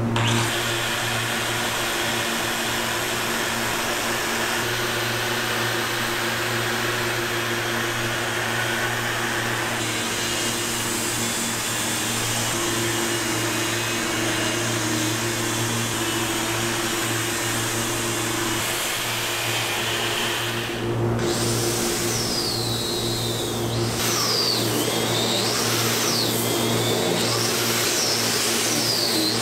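Hand-held electric angle grinder fitted with a sanding disc, running steadily with a motor hum as it sands a pine tabletop. In the last third a high squeal rises and falls over and over as the disc works the table's edge.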